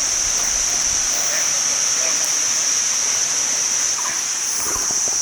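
Continuous high-pitched drone of cicadas over the steady rush of the waterfall, with a few faint bird chirps scattered through.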